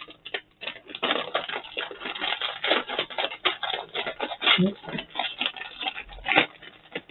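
A plastic crisp packet crinkling and crackling in the hands as it is pulled and torn open, a dense irregular run of crackles.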